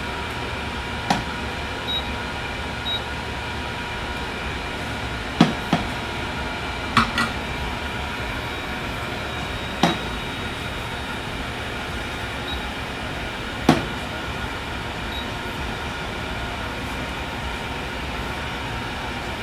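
Hot air rework station blowing a steady airy hiss, set around 385 degrees with airflow 50, heating the board to desolder a burnt phone charging port. About six light, sharp clicks sound over it.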